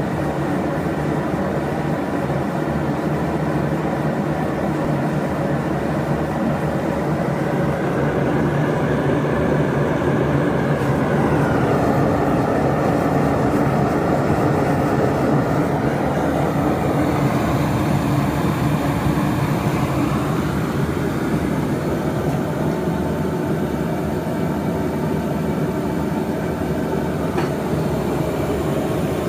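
Two-burner propane forge running at 20 psi, its burners giving a steady, loud roar. The tone shifts somewhat in the middle.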